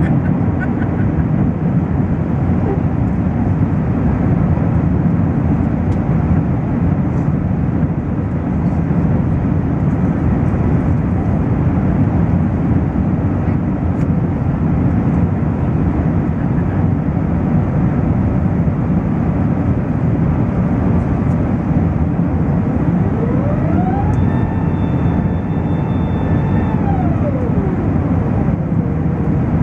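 Qantas Airbus A380 airliner noise: a loud, steady, deep rumble. Near the end a pitched tone rises, holds for a few seconds and falls back.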